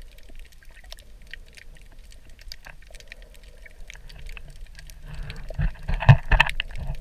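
Underwater crackle of a coral reef, scattered sharp clicks typical of snapping shrimp. About five seconds in a louder rushing, watery burst with a few low thumps rises and dies away again.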